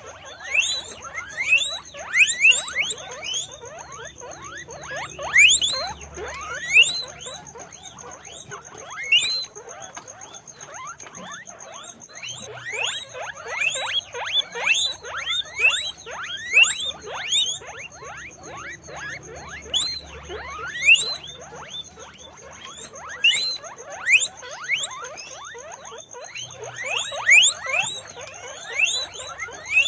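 Guinea pigs squeaking over and over: many short, rising squeaks, often overlapping, coming in clusters with brief lulls.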